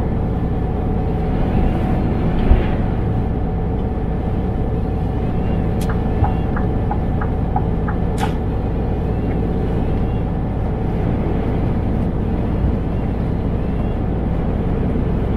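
Scania truck driving, its engine and road noise a steady low rumble inside the cab. About six seconds in, a sharp click is followed by a quick run of short ticks and a second click two seconds later.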